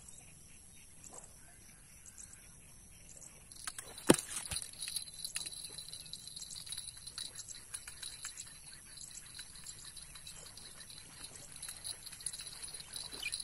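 Faint rustling and small clicks of a person getting up and handling gear, with one sharp knock about four seconds in. A steady high hiss sets in just before the knock.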